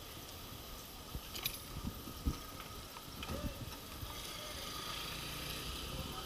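Wet city street ambience: a steady hiss of traffic on wet cobblestones that grows louder about four seconds in, with scattered low thumps.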